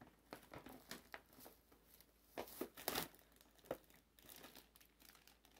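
Clear cellophane gift wrapping crinkling as hands dig into a gift bag and pull out wrapped treats, in irregular crackles that are loudest around the middle.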